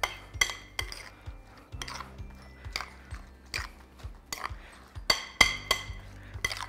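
Metal spoon stirring a chunky egg and hash brown mixture in a glass mixing bowl: irregular clinks against the glass, about two or three a second, the loudest a little after five seconds in. Soft background music underneath.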